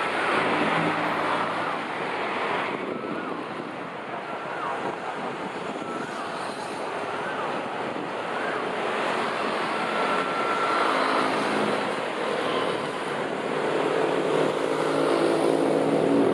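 Diesel-electric locomotive, an Alsthom AHH unit numbered 4131, running as it hauls a passenger train slowly toward the listener. Its engine grows louder near the end as it draws close.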